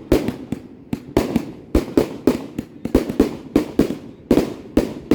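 Fireworks going off in a rapid, irregular barrage of sharp bangs, about four to five a second, each trailing a short rumbling echo.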